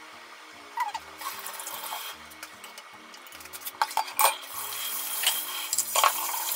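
Plastic wrap and paper crinkling and rustling in irregular bursts as raw pork slices are handled, over soft background music.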